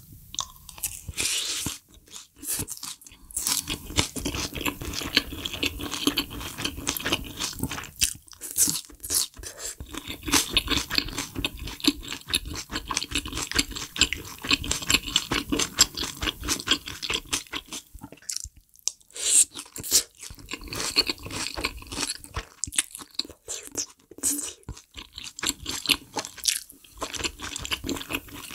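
Close-miked chewing and crunching of food, a dense run of rapid wet clicks and crunches with a few brief pauses between mouthfuls.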